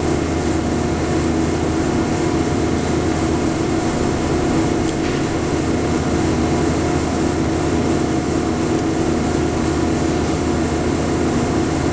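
Steady machine hum with an even hiss, unchanging in level and pitch.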